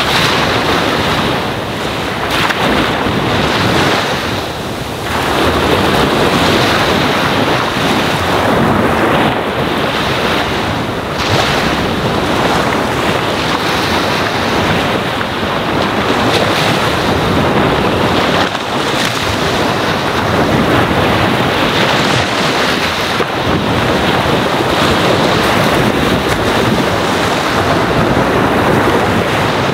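Ocean waves lapping a sandy shore: a continuous rush of surf that swells and eases, with a brief lull about four to five seconds in.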